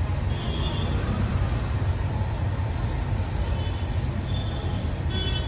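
Steady low rumble of road traffic, with a few faint, short high-pitched squeaks.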